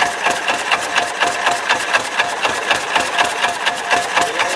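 Small wooden fishing boat's inboard engine idling with a fast, even beat.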